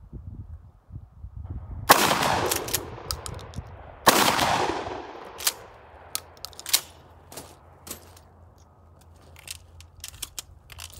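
Two shots from a Mossberg 500 pump-action 12-gauge shotgun firing 2 3/4-inch low-recoil 00-buck at 1200 fps, about two seconds apart, each ringing out and echoing for about a second. They are followed by several sharp clacks of the pump action and the gun being handled.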